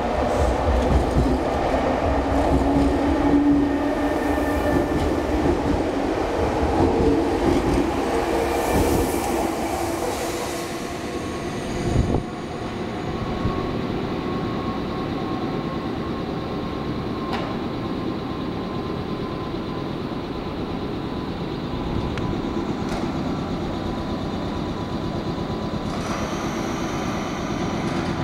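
Electric commuter trains running through a station: wheels rumbling on the rails with traction-motor whine, loudest in the first ten seconds. A sharp click comes about twelve seconds in, then a steadier, quieter running noise with a faint whine as another train approaches.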